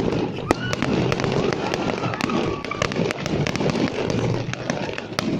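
Fireworks display: a rapid, continuous barrage of sharp bangs and crackles over a dense rumble of launches and bursts.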